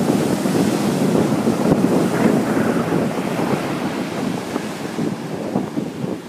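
Big ocean surf: a breaking wave's rushing wash up the sand, slowly fading, with wind buffeting the microphone.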